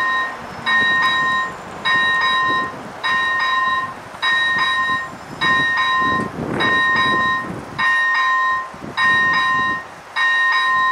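Level-crossing electronic warning bell (E Bell ZV 01) ringing in a steady rhythm, one two-tone electronic ding about every 1.2 seconds, warning of an approaching train.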